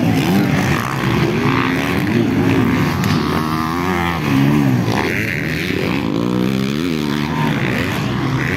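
Motocross dirt bike engines racing round the track, their revs repeatedly rising and falling as riders throttle through jumps and corners, with more than one engine heard at once.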